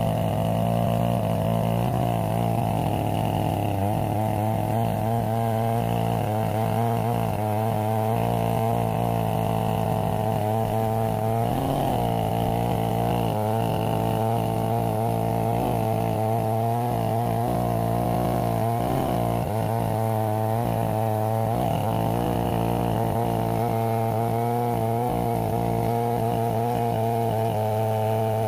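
Stihl 070 two-stroke chainsaw running at steady full throttle under load, ripping through a black walnut log on a Granberg Alaskan chainsaw mill.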